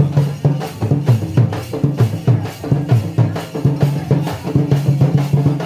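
Drum-led dance music with a quick, steady beat and repeating low notes under it.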